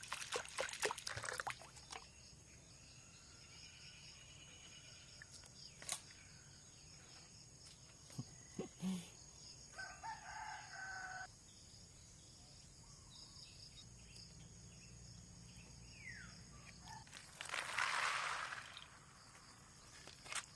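A rooster crows once, about ten seconds in, over a steady high-pitched background whine. There are scattered sharp clicks in the first two seconds and a brief loud rustling burst near the end.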